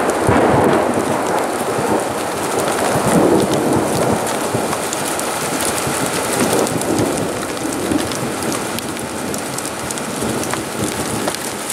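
Thunder rumbling, strongest in the first few seconds and then dying away, over the steady hiss of rain falling at the start of a thunderstorm.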